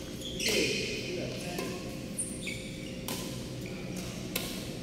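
Badminton rally in a large hall: sharp racket hits on the shuttlecock about every second or so, with short high-pitched squeaks of court shoes on the mat between them.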